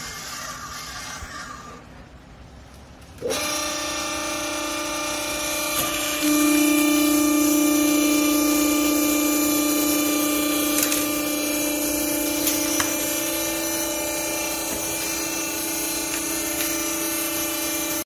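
Vertical baler's electric motor and hydraulic pump switching on about three seconds in and running with a steady hum and whine, which gets louder a few seconds later as the lifting chamber is raised off the finished bale.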